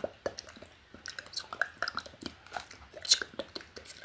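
Close-miked ASMR inaudible whispering with wet mouth sounds: a quick, irregular run of small mouth clicks among breathy, unintelligible whisper fragments, one sharper click about three seconds in.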